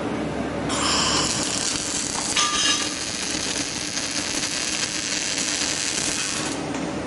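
Robotic arc welding on steel scaffolding planks: the crackling hiss of the arcs starts about a second in and cuts off near the end, over a steady hum of factory machinery.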